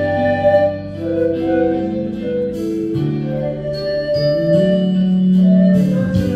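Pan flute playing a slow, sustained melody over a backing track with steady bass notes.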